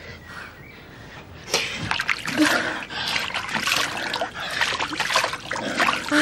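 Water splashing in a wash basin as someone bent over it washes. Irregular splashes that grow louder about a second and a half in.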